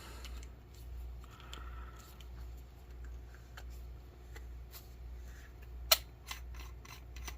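Brinyte PT16 flashlight's tail cap being unscrewed by hand: faint scraping and small ticks from the threads and handling, with one sharp click about six seconds in followed by a few lighter clicks.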